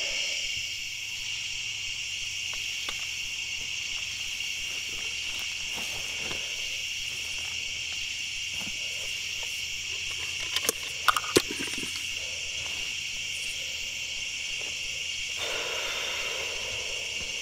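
Steady chorus of crickets chirping, with a few short sharp clicks a little past the middle.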